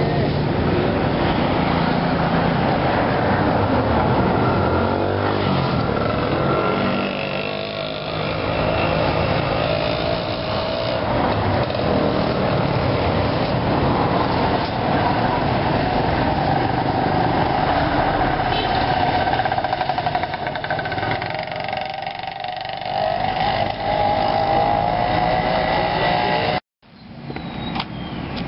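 Road traffic at the roadside: a steady din of passing vehicle engines whose tones rise and fall as they go by. Near the end the sound cuts off abruptly, then comes back quieter.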